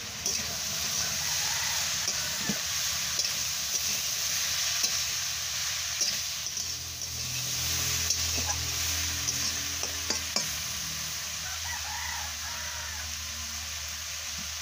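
A steel spatula stirring and scraping vegetables and fish around a metal kadai, over a steady sizzle of frying, with scattered clinks of the spatula against the pan.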